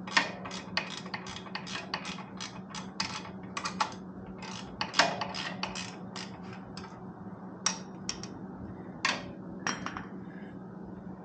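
Ratchet wrench clicking as the mounting bolt of a new motorcycle muffler is snugged up: quick, even clicks, about four or five a second, for the first few seconds, then slower scattered clicks. A steady low hum runs underneath.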